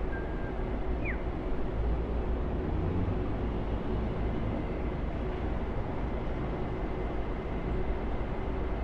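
Steady low rumbling background noise with a faint short chirp about a second in.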